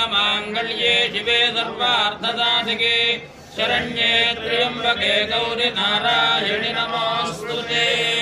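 A Hindu priest chanting Sanskrit mantras in a steady recitation during a puja, with a short break about three and a half seconds in.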